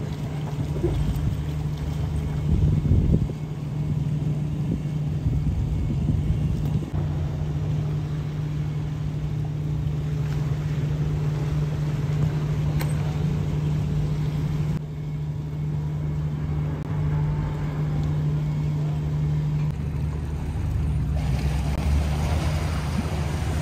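Motor yacht's diesel engines running at manoeuvring speed: a steady low hum that shifts slightly in level and pitch a few times.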